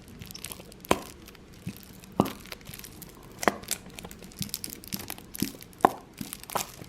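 Crinkling plastic being handled, with irregular sharp clicks and crackles, about a dozen over the few seconds.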